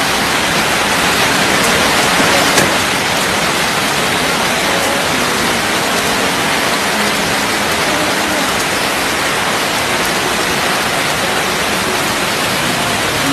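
Heavy rain falling steadily on a wet street, a dense even hiss with no break.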